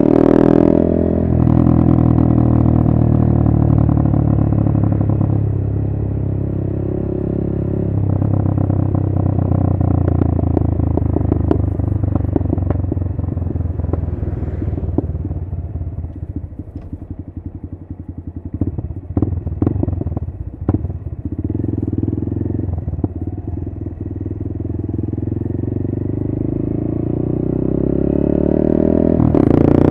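Honda MSX125 (GROM) 125cc single-cylinder engine running through a TYGA full stainless race exhaust with carbon can, heard from the bike while riding. Its revs rise and step with gear changes, ease off and drop about halfway through with a run of sharp crackles, then climb again to high revs near the end.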